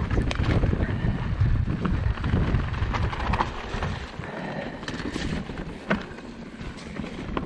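Mountain bike being ridden over a rooty, muddy trail: wind buffets the microphone while the tyres and frame rattle and knock over the roots. The rush of wind and rumble drops off about four seconds in, leaving scattered sharp clicks.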